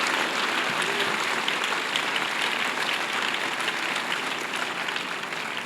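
Congregation applauding: dense, steady clapping from many hands, slowly fading.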